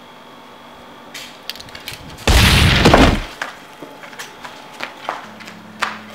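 A single loud shotgun blast about two seconds in, dying away over about a second, with a few sharp clicks just before it and scattered light taps after it.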